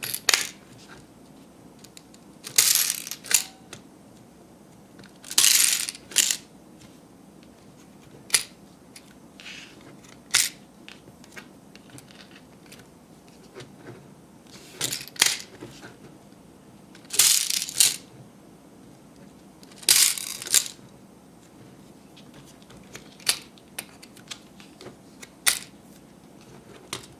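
Small plastic toy vending-machine candy dispensers clicking as they are worked, with small round mints clattering down into the plastic dispensing trays. The clatters come in about a dozen short bursts, a few seconds apart.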